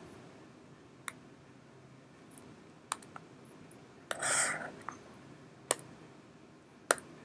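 Faint, scattered clicks of a computer mouse and keyboard, about five single clicks a second or more apart, with a short hissing rustle a little after four seconds in.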